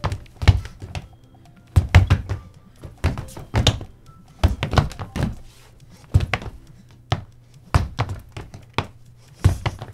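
Footsteps thudding on a hard floor at about a walking pace, as in a Foley footstep recording, with faint music underneath.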